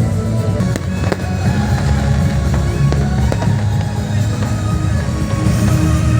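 Fireworks going off, a few sharp bangs in the first half, over loud music with a steady low bass line.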